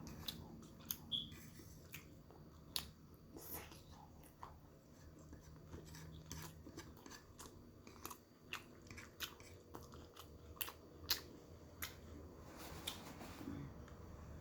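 A person chewing food close to the microphone: faint, irregular mouth clicks, several a second at times.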